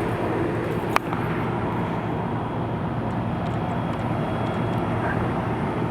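Early-1970s Whirlpool central air-conditioner condenser unit running: a steady rush of its fan drawing air through the coil over a low hum. There is a single sharp click about a second in.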